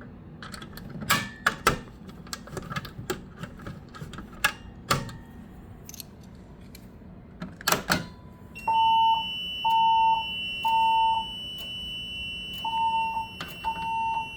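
Fire alarm voice-evacuation speakers sounding the temporal-three evacuation tone: three beeps, a pause, then three more, over a steady high-pitched whine, starting a little past halfway. Before that there are only scattered clicks and knocks.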